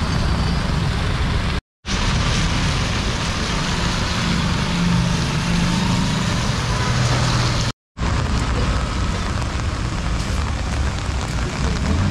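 Heavy rain hissing steadily on a wet street, with the low hum of vehicle engines passing in traffic. The sound cuts out briefly twice, about two seconds in and again about eight seconds in.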